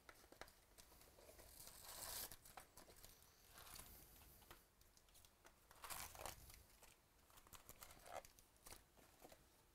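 Faint crinkling and rustling of foil card packs being pulled by hand from an opened 2018 Bowman Baseball hobby box, with brushes and scrapes against the cardboard box, in short irregular bursts.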